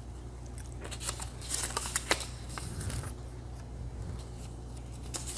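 Small slips of paper being handled and folded, a light rustling with a few short clicks and taps.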